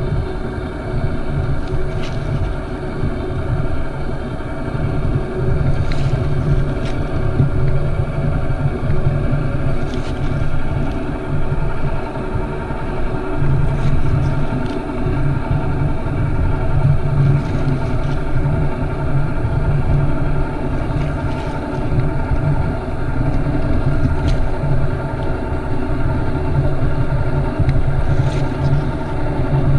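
Craftsman cordless power caulk gun's motor running steadily on speed setting 2, driving the plunger to push out a bead of caulk. A few faint clicks are heard over it.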